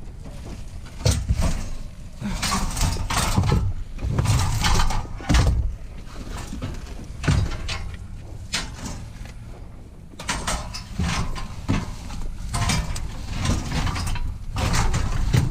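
Irregular knocks, clatters and scraping of scrap items being handled and loaded, with several heavy thuds.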